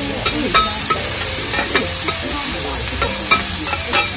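Cabbage and other vegetables sizzling on a flat iron griddle while two metal spatulas scrape and toss them. The spatulas strike the griddle with sharp, irregular metallic clinks, several each second.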